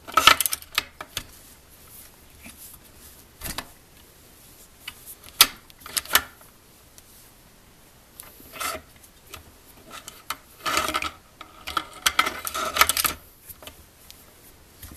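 Steyr Zephyr II .22 rimfire bolt-action rifle being handled at the bolt: scattered sharp metallic clicks, then a longer run of clicking and sliding metal about two-thirds of the way through.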